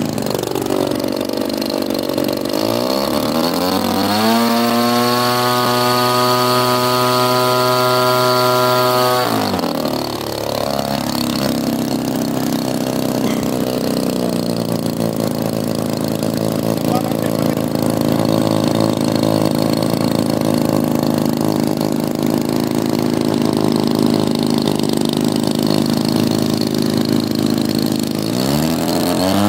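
Nitro glow engine of a large Ultra Stick RC model plane running on the ground. It is revved up a few seconds in and held at high speed for about five seconds, drops back to a steady idle, then opens up again near the end as the plane sets off on its takeoff roll.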